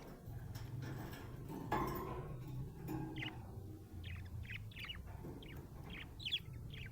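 Budgerigars chirping and warbling in short bursts, thicker in the second half, with a brief knock about two seconds in.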